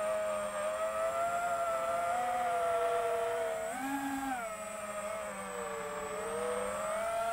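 FPV quadcopter's motors and propellers whining as heard from the onboard camera. The pitch wavers with throttle: it swells briefly about four seconds in, sags a little after, and climbs again near the end.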